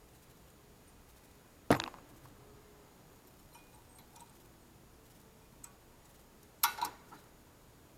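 Sharp metallic clicks of small brake parts being handled: one loud click about two seconds in, a faint tick, then a clattering double clack near the end.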